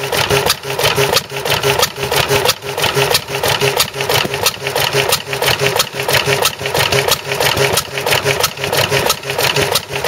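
Vintage single-cylinder stationary engine running steadily, its flywheel turning and its valve and ignition gear making an even, rhythmic mechanical clatter.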